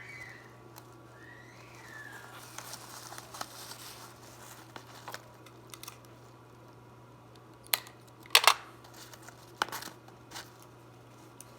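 Paper crinkling and rustling as cut paper pieces are stuffed into a homemade paper squishy, with a few short sharp crackles, the loudest a little past eight seconds in.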